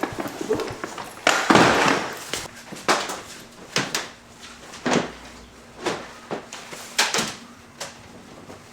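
Irregular knocks and clatters of tools and parts being handled and set down, roughly one a second, with a longer sliding rattle about a second in.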